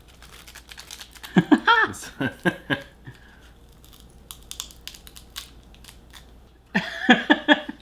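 Light crackling clicks of a flying saucer sweet's rice-paper wafer being bitten and chewed, with short bursts of voice sounds from the taster about a second in and again near the end.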